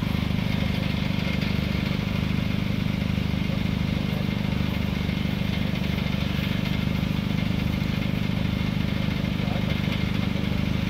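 Steady low hum of an idling vehicle engine, unchanging throughout.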